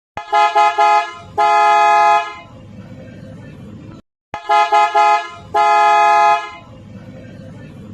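Aftermarket PIAA bass car horn sounded in a quick run of short toots and then one long blast, and the whole pattern repeated about four seconds later.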